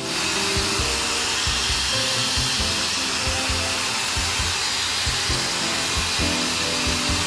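Slow-speed air drill running with a carbide cutter, reaming out a puncture in a radial tire: a steady hiss and whir that cuts in suddenly.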